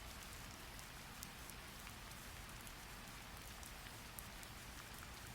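Faint, steady rain, an even hiss with scattered light drop ticks.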